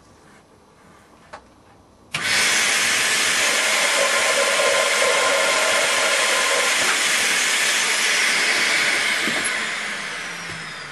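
Vacuum cleaner switched on about two seconds in, running steadily with a rush of air as its blown exhaust is fed through a hose into a model steam-engine cylinder to lift the piston. Near the end it fades with a falling whine as the motor winds down.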